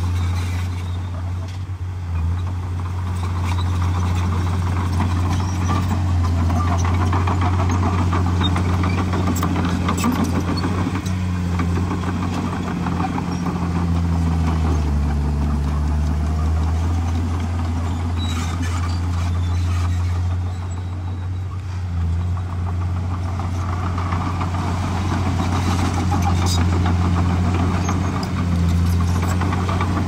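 Komatsu D51PX crawler bulldozer's diesel engine running steadily under work. Its note sags and comes back up about halfway through, and a few light clicks sound over it.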